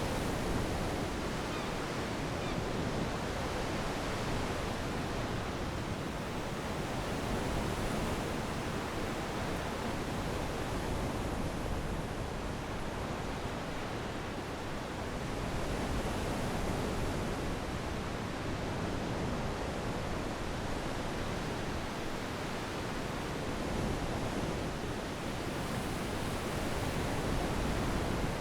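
Steady rush of sea water and wind around a sailing yacht under way, swelling slightly every several seconds.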